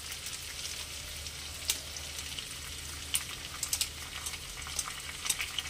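Chopped ginger and whole spices (panch phoron, dried red chillies, bay leaf) sizzling steadily in hot mustard oil in a kadai, with a few sharp ticks here and there.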